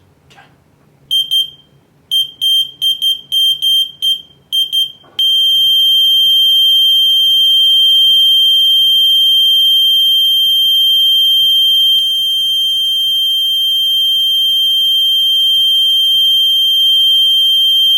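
Arduino flame-alarm buzzer sounding one high-pitched tone, set off by the flame sensor detecting a flame. It starts as a stutter of short, uneven beeps, then from about five seconds in holds a steady continuous tone.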